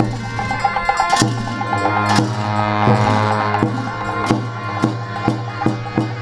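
Tibetan Buddhist ritual music: gyaling shawms play reedy, held notes over a steady low drone, while a large frame drum is beaten in strokes that come faster toward the end. A long ringing crash, likely cymbals, comes in about two seconds in.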